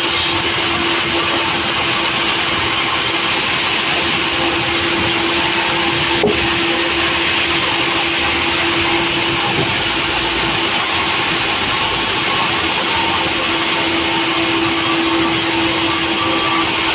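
Sawmill running steadily: a loud, even machine noise with a constant hum, and one sharp click about six seconds in.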